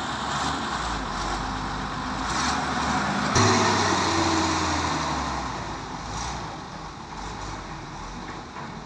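Heavy diesel engines running under load as a SANY SY205C excavator tows a 30-ton Kato crane truck out of mud. There is a single clank about three and a half seconds in, and the engine sound grows fainter toward the end as the machines move off.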